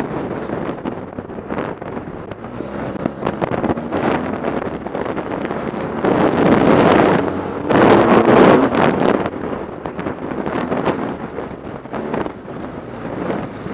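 BMW R 1200 GS Adventure's boxer-twin engine running under way on a gravel track, mixed with heavy wind buffeting on the microphone. The wind noise swells loudest for a few seconds in the middle.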